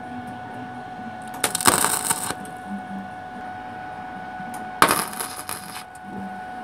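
Wire-feed welder tack-welding a steel exhaust tube: two crackling arc bursts of about a second each, the first about a second and a half in, the second about five seconds in. A faint steady hum runs underneath.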